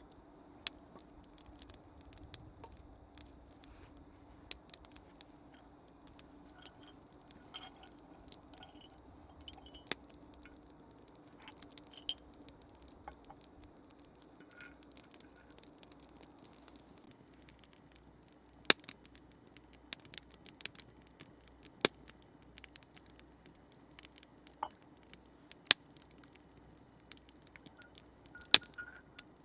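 Wood campfire crackling, with sparse, irregular sharp pops, several louder ones in the second half.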